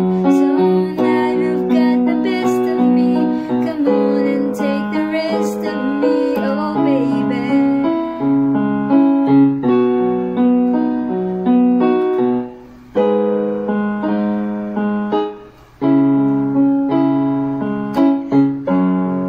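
Casio electronic keyboard playing a slow melody over sustained chords, with two short breaks near the middle.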